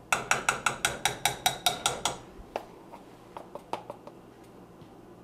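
A spoon clinking against a metal saucepan while cocoa powder is stirred in. About ten quick, evenly spaced ringing clinks come in the first two seconds, then a few fainter scattered ones.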